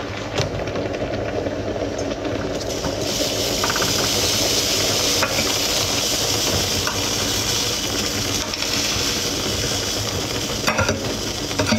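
Thick yellow mixture cooking in a frying pan, sizzling with a steady hiss that grows louder about three seconds in, with a few light clicks near the end.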